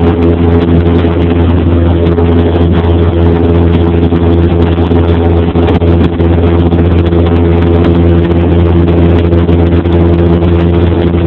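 Cessna 172P's four-cylinder Lycoming engine and propeller running steadily in flight, a constant drone heard from inside the cabin.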